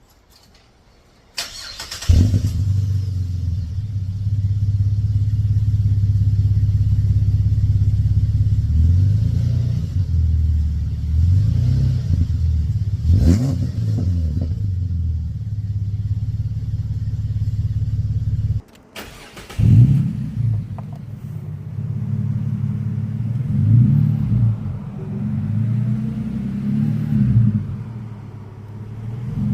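A car engine is cranked by its starter and catches about two seconds in, then runs with a deep, steady exhaust note and is revved several times, the pitch rising and falling. A little past halfway it cuts off abruptly, is restarted at once, and is revved again in short blips.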